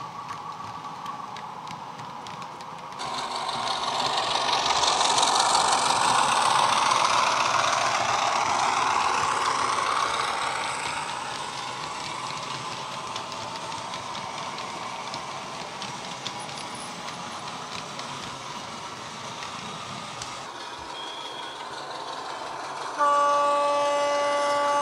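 Model train of Warflat wagons rolling past on the track, the wheel and rail noise building and then easing off as the wagons pass. About two seconds before the end, the Heljan Class 33's DCC sound decoder starts sounding its horn, a steady note through a small speaker.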